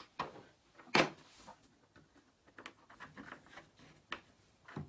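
Sparse clicks and taps of small M3 screws and metal kit parts being handled and set down on a paper-covered table, the loudest a single sharp tap about a second in.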